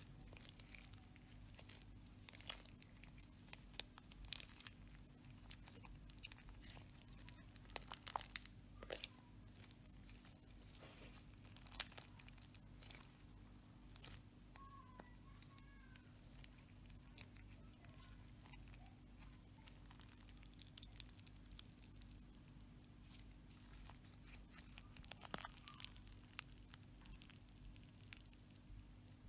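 Slime being kneaded, squeezed and stretched by hand, giving faint sticky clicks and crackles that come in short clusters, over a low steady hum.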